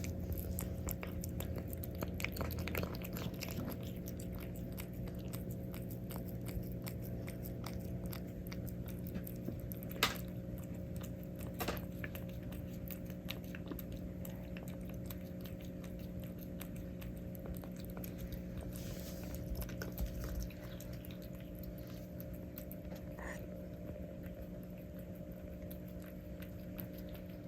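A cat eating: a run of small, quick crunches and chews of its food, with a steady low hum underneath.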